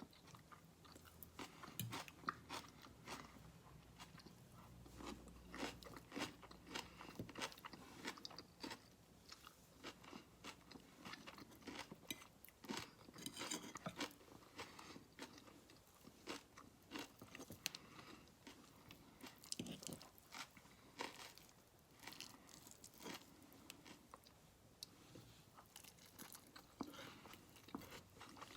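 A person eating close to the microphone: quiet, irregular chewing with soft crunches and bites.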